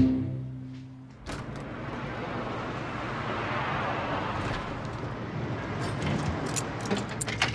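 A car passing by on a street at night: its tyre and engine noise swells over a couple of seconds and then fades away. A held note of music dies out at the start, and a few light clicks come near the end.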